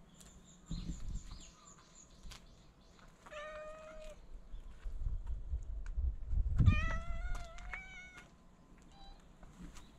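A cat meowing: one drawn-out meow about three seconds in, then two more back to back a few seconds later, and a faint short one near the end. A low rumble is heard under the second pair.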